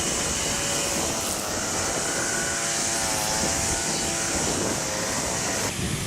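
A steady mechanical drone with faint engine-like tones that waver slightly in pitch, under a strong high hiss that stops abruptly near the end.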